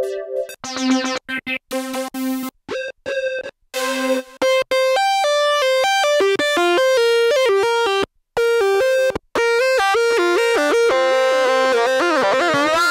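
Korg RK-100S 2 keytar playing a synthesizer patch. It starts with a few short, clipped notes separated by gaps, then plays a continuous single-note melody that bends and wavers in pitch near the end.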